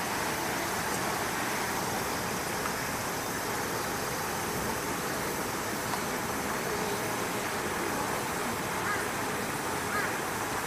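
Steady outdoor background noise, an even hiss with no distinct events, with a few faint chirps near the end.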